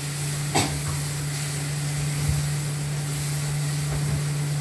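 Pan of spiced onion masala with hot water cooking on the stove, giving a steady hiss over a steady low hum, with a single sharp click about half a second in.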